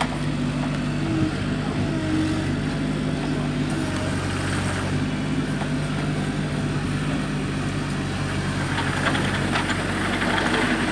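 Compact CAT mini excavator's diesel engine running steadily under load as the machine climbs out of a deep pit on its tracks. A rougher hissing noise joins in during the last couple of seconds.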